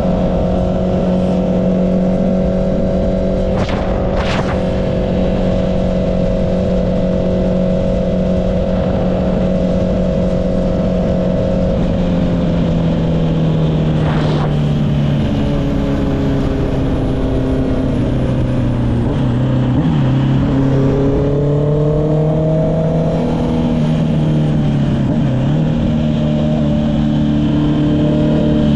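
Honda CB650R inline-four engine running through an Akrapovic exhaust, held at steady cruising revs before the pitch drops about twelve seconds in as the throttle eases. After that the engine note rises and falls with the throttle, over steady wind rush.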